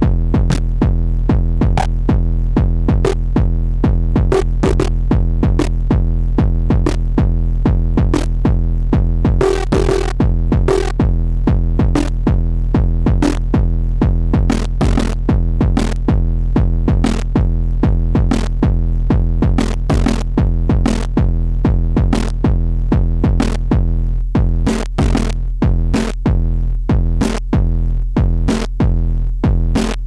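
Eurorack modular synthesizer, a WMD Kraken voice, playing a fast, even stream of percussive hits, about four a second, over a steady low drone. Near the end the low drone drops away between the hits, leaving them more separate.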